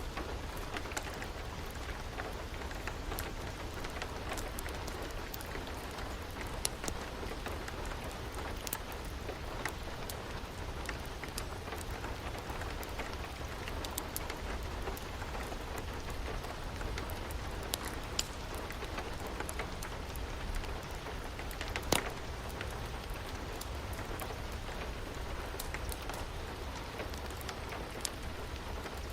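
Steady rain, mixed with a fireplace crackling: scattered sharp pops over the rain, the loudest coming about three-quarters of the way through.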